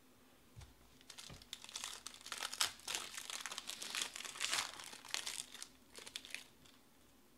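Foil wrapper of a trading-card pack being torn open and crumpled by hand: a dense crinkling crackle that starts about a second in and dies away about a second before the end.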